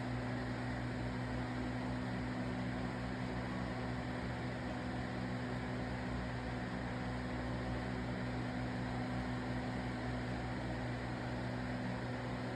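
Aquarium pump humming steadily, with a low electrical buzz over an even hiss.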